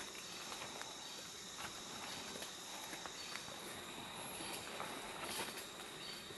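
Steady high-pitched drone of insects, with scattered faint rustles and clicks.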